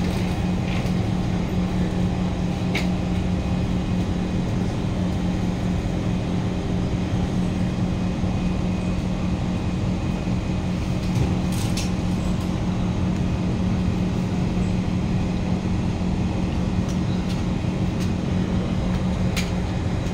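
Steady low hum inside a Kawasaki C151 metro car standing at the platform, with a few brief sharp clicks.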